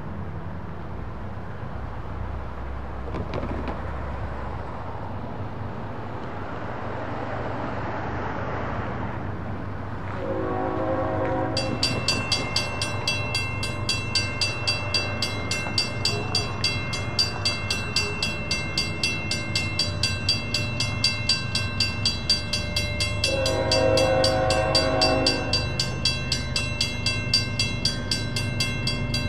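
A railroad crossing's mechanical signal bell starts ringing about twelve seconds in with quick, steady strokes as the crossing activates; only one bell rings, because the left signal's bell is dead. A diesel locomotive horn sounds a short blast just before the bell starts and a longer blast later, over a low rumble of the approaching freight train.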